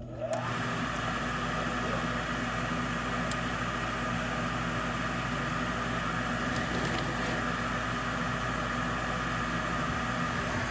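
A York gas furnace's newly installed draft inducer motor starting on a call for heat: it comes on suddenly, rising briefly in pitch as it spins up, then runs steadily with a hum.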